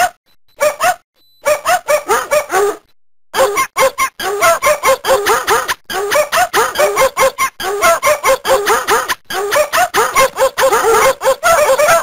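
Novelty mobile-phone ringtone made of dog barks cut into a fast rhythmic 'rap', several barks a second, with a few short pauses in the first few seconds.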